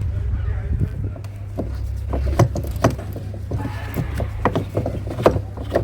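Irregular knocks and clicks of hard scrap parts being handled and pried apart, over a steady low hum.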